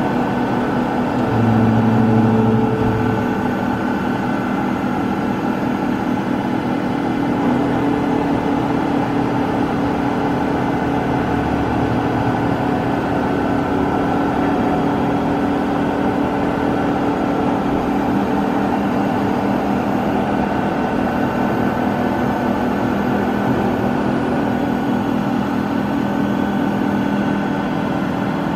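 1995 Soraluce Soramill bed milling machine running under power: a steady machine hum with several whining tones that hold pitch. A louder low hum comes in briefly about a second and a half in, as the head moves along its axes.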